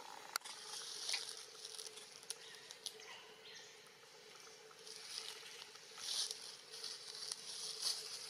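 Soft rustling that swells and fades, with scattered small clicks and snaps, as a baby macaque climbs and grips a thin twiggy branch; a faint steady hum lies underneath.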